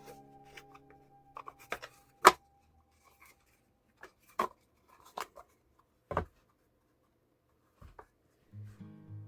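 Scattered light clicks and knocks of a handmade PVC box being handled, its inner part sliding in its outer shell, with one sharper knock about two seconds in. Strummed guitar music comes in near the end.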